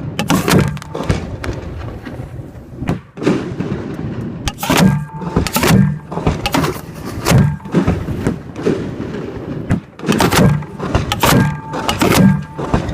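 Fireworks display shot from close to the mortar tubes: aerial shells launching and bursting in a rapid series of loud booms, coming in clusters.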